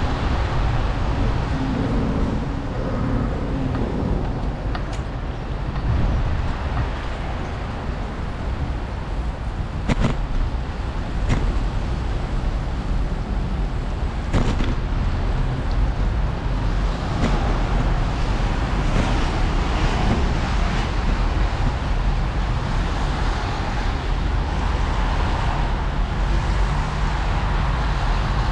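Steady rush of wind on the microphone and wet-road noise from a bicycle ridden in the rain, with a few sharp knocks from the bike jolting over bumps about ten to fifteen seconds in.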